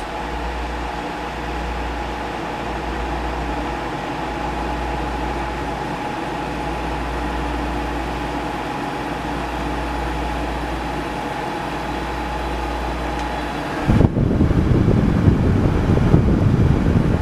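Kenmore window air conditioner running in cool mode: a steady fan rush over a low hum with a faint steady whine. About fourteen seconds in, a louder, rough rumbling sound takes over for the last three seconds.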